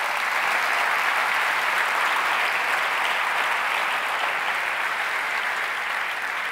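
Large audience applauding steadily, easing off near the end.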